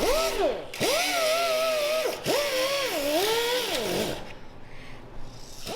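Handheld power tool motor run in three long bursts. The whine wavers in pitch while it runs and winds down sharply each time the trigger is let go. It stops about two-thirds of the way through.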